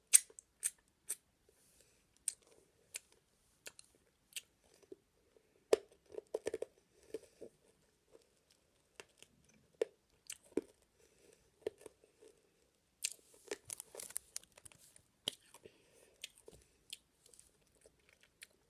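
A child chewing and crunching a Toxic Waste sour hard candy close to the microphone: scattered sharp mouth clicks and smacks, with denser bouts of crunching about a third of the way in and again past two-thirds.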